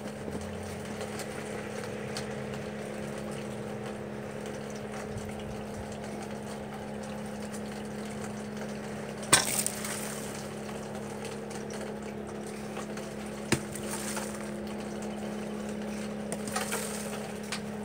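A steady machine-like hum, with two sharp knocks about nine and thirteen seconds in.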